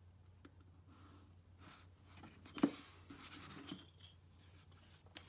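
Graphite pencil scratching on paper as lines are ruled along a straightedge, with a sharp tap about two and a half seconds in as the ruler is handled.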